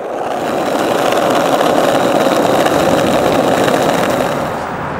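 Skateboard wheels rolling over rough asphalt: a steady gritty roar that eases off slightly near the end.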